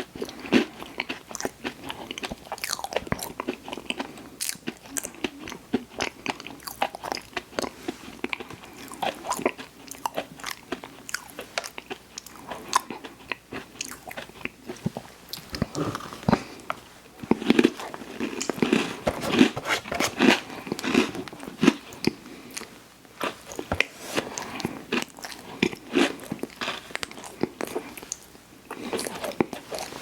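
A person biting and chewing sweets close to the microphone: a steady run of irregular crunches and small clicks, growing busier about halfway through.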